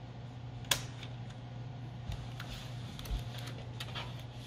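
Plastic clicks and snaps from an HP laptop's thin screen bezel being pried off with a plastic pry tool as its clips let go: one sharp click about a second in, then a few lighter ticks, over a low steady hum.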